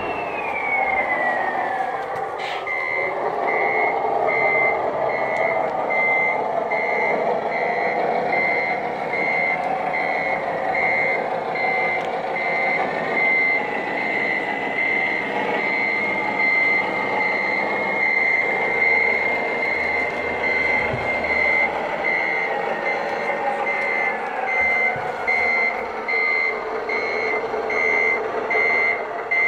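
RC tipper truck's sound module playing a reversing beeper: an evenly repeating beep that starts a couple of seconds in and carries on throughout, over the steady drone of the running model truck. A falling whine is heard in the first couple of seconds.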